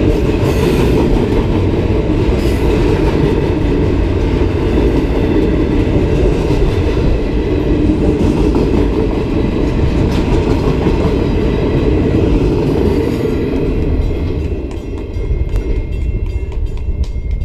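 Intermodal freight train passing close by, its wheels rumbling and clicking over the rail joints. About three-quarters of the way in the rumble drops away as the last cars go by, leaving sharp regular clicks.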